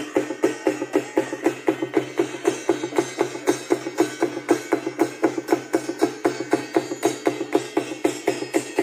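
Music with fast, even drumming, about four or five strikes a second, over a steady pitched tone.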